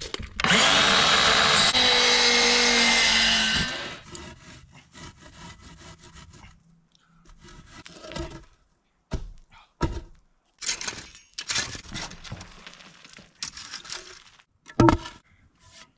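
Electric miter saw spinning up and cutting through wood for about three seconds, then stopping. After it come scattered wooden knocks and thumps as 4x4 timbers are set down and shifted.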